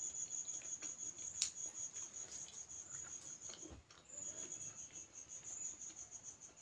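A cricket trilling: a steady, high, rapidly pulsing note that breaks off for a moment a little before four seconds in and then starts again. Faint chewing and mouth clicks sound under it.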